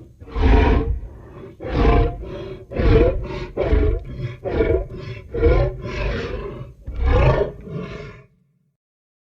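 Film sound effect of a hadrosaur (duck-billed dinosaur) calling: about nine short, loud calls in quick succession, each under a second. It cuts off about eight seconds in.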